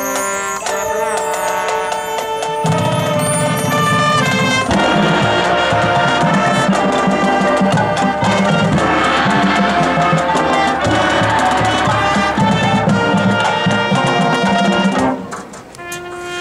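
Marching band playing: sustained brass chords over percussion. Low brass comes in a few seconds in and the full band plays loud, then drops back near the end.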